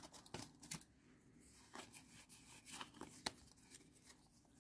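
Faint, scattered clicks and soft rustles of Pokémon trading cards being handled, slid one behind another in the hand while flipping through a pack.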